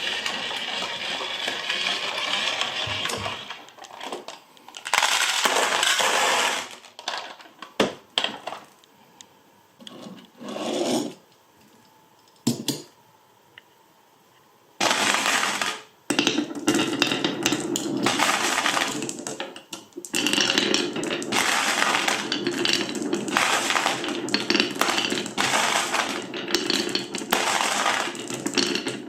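Glass marbles rolling and clattering along marble-run slopes. There are several short bursts of rolling, a quiet spell, then a nearly unbroken rattle of many marbles from about halfway through.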